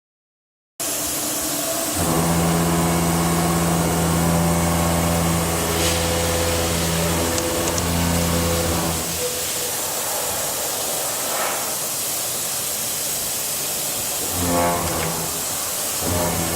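Milling cutter machining metal in a CNC machine: a steady hiss with a low humming tone from the cut, which holds for several seconds, drops away, and returns twice in short spells near the end.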